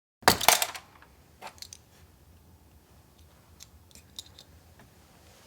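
A short loud clatter of plastic keycaps, then a few scattered light clicks as the last keycaps are pulled off a Dell AT-101W mechanical keyboard.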